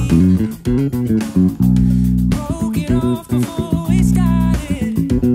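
Electric bass played fingerstyle in a groove, alternating long held low notes with short, quick plucked notes. A backing track with a higher melody line plays along with it.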